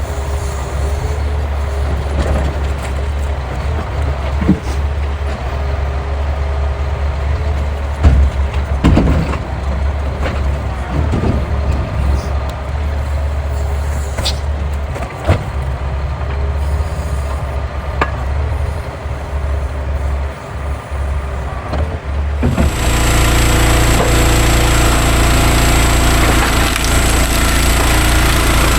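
A truck's diesel engine running steadily, with a few heavy knocks as logs are delivered. About three quarters of the way in, the sound switches abruptly to a louder, steady motor noise.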